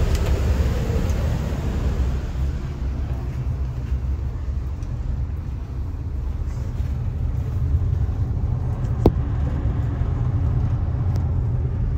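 Steady low rumble of a passenger ferry's engines, heard from inside the cabin, with one sharp click about nine seconds in.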